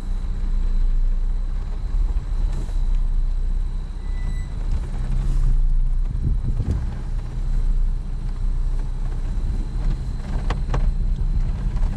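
Off-road truck's engine running at low speed over rough ground, a steady low drone that rises and falls with the throttle. A couple of short sharp scrapes near the end, a little tire rub.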